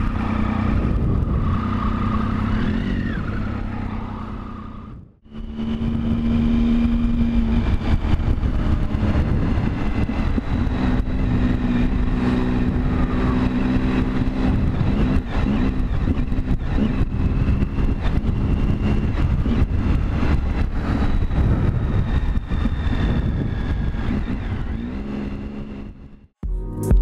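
Motorcycle engine running on the move, with heavy wind rumble on the microphone. The sound fades out briefly about five seconds in, comes back, and fades out again near the end.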